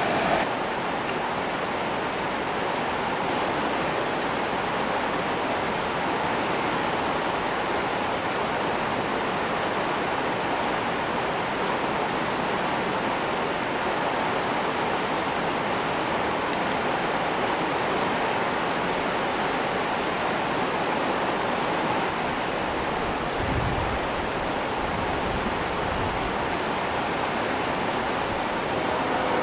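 Steady rush of fast-flowing river water, an even, unbroken noise.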